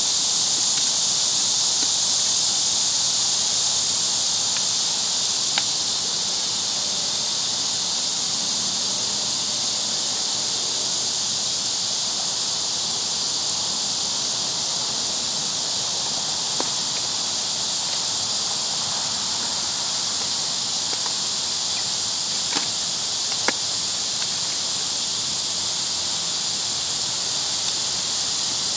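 Steady high-pitched drone of a summer insect chorus, with a few faint clicks.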